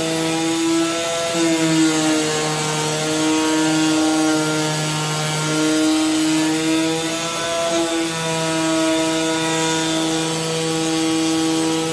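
AOKE DCZ70 digital flatbed cutting plotter running as its tool head cuts a gasket sheet. The sound is a steady machine hum: one strong low tone with overtones over a hiss. The tone breaks off and shifts slightly in pitch every few seconds.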